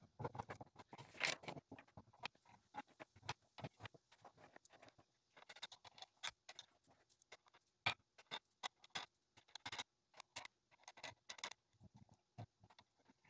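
Faint, scattered clicks, taps and light metal rattles of wooden spacer blocks, washers and nuts being handled and set onto the threaded rods of a clamping jig on a wooden bench, with a couple of sharper knocks about a second in and near the middle.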